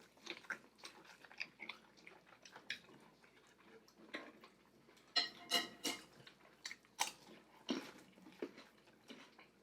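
A person chewing and biting into saucy vegan seafood boil, with irregular wet smacks and crunches that come in louder clusters about five and seven seconds in.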